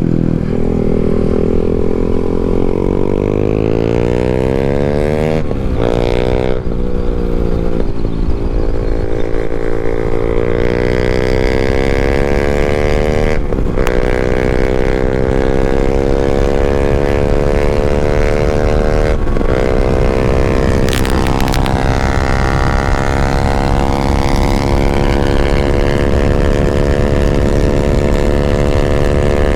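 Yamaha MT-07 parallel-twin motorcycle engine accelerating through the gears. The pitch climbs in each gear and drops at upshifts about 6, 13 and 19 seconds in, then settles into a steady cruise.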